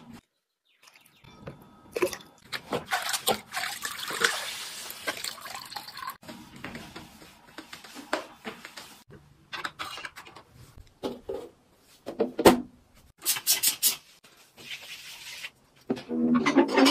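Household cleaning sounds: water sloshing and dripping, and a flat mop wiping a wet tiled floor, broken by short knocks and squirts.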